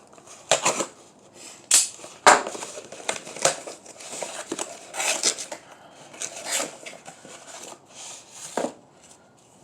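Paper and plastic packaging being handled and torn open, crinkling and rustling, with several sharp clicks and knocks scattered through it.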